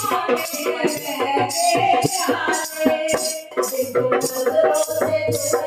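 Devotional kirtan music: a woman singing a bhajan into a microphone over a dholak drum, with jingling percussion and hand-clapping keeping a steady beat of about two strokes a second.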